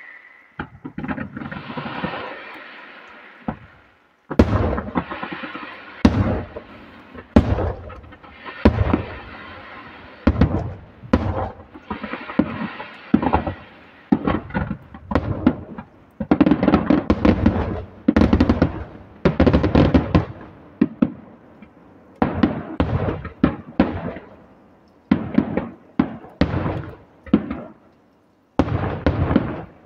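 Fireworks display: a long run of sharp bangs from bursting shells, each followed by a short echoing tail, about one or two a second. The bangs come in a rapid volley through the middle stretch.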